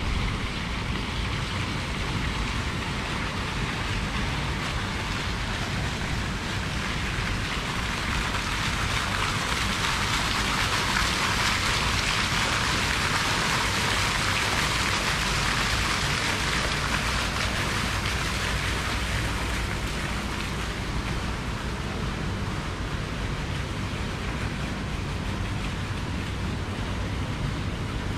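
Fountain jet splashing into a pool: a steady rain-like hiss that swells to its loudest about halfway through and then fades, over a low steady rumble.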